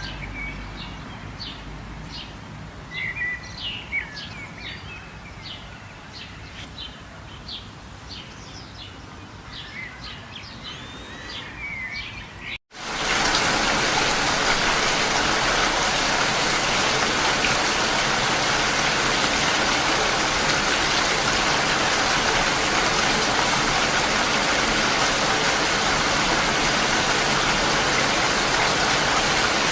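Small birds chirping over a quiet background for about the first twelve seconds; then the sound cuts out for an instant and is replaced by steady, loud rain.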